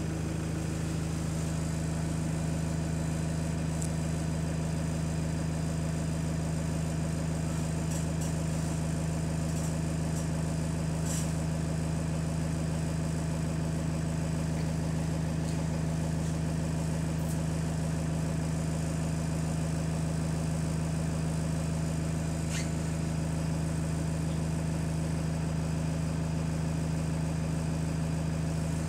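Double-decker bus's diesel engine idling steadily, heard from inside the lower deck, its low hum holding one pitch throughout. A few faint clicks sound over it.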